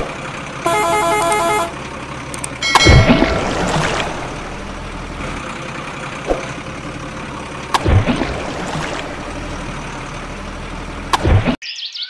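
Dubbed truck sound effects: a truck horn held for about a second, over a steady engine rumble, with three loud thumps spaced a few seconds apart. The sound cuts off abruptly near the end.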